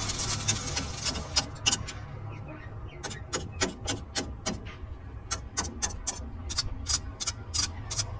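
Sharp, evenly spaced metallic ticks, about four a second, over the steady low hum of running workshop machinery. A hissing noise fades out in the first second or so, the ticks start about three seconds in, and they pause briefly in the middle.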